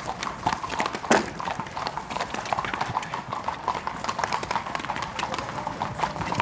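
Horses' hooves drumming on turf as horses canter and jump a post-and-rail fence, with one loud thud about a second in.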